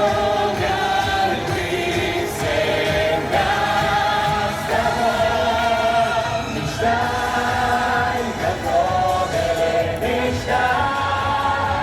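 Music: a song with choral singing over instrumental accompaniment, held melodic notes throughout.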